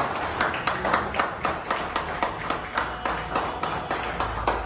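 A small group clapping in time, steady and rhythmic at about four claps a second, for a new car's unveiling.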